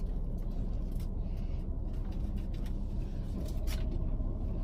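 Steady low rumble of a parked car's engine idling with the air conditioning running, heard inside the cabin, with a few faint clicks.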